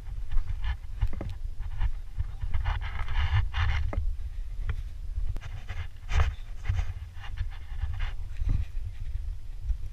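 A person panting heavily, in irregular breaths, while walking down a soft sand dune, with footsteps in the loose sand under the breathing.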